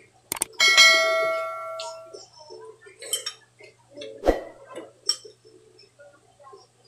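A click, then a bright bell chime that rings out and fades over about a second and a half: the sound effect of a YouTube subscribe-button animation. After it come scattered small clicks and one louder knock from eating at the table.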